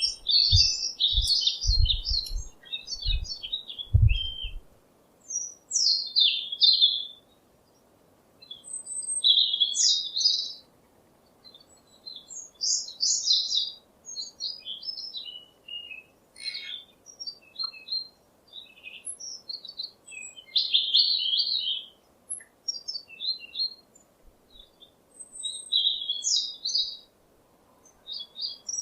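Small songbirds chirping and twittering in short bursts and trills, several calls overlapping. A few low thumps sound in the first four seconds.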